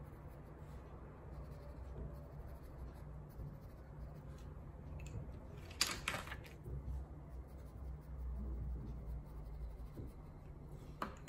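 Coloured pencils clicking against each other as a handful is picked out of their box, a short clatter about six seconds in, with faint scratching of coloured pencil on paper over a steady low hum.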